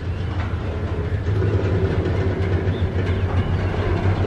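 Double-stack container well cars rolling past on the rails: a steady low rumble of steel wheels, with a couple of sharp clicks as wheels cross rail joints.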